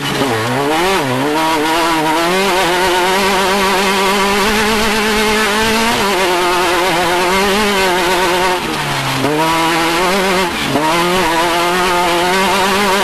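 Off-road race vehicle's engine under hard throttle, revs swinging quickly up and down over the first couple of seconds, then held high and steady, dropping and climbing back twice near the end.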